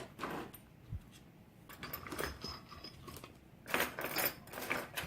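Small metal parts of a Mul-T-Lock C-16 padlock clicking and clinking as it is taken apart by hand: a few scattered light clicks, then a busier run of clicks and scrapes near the end.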